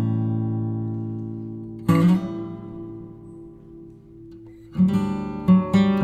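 Background music: acoustic guitar chords strummed and left to ring out, one about two seconds in and another near five seconds, then a run of quicker strums near the end.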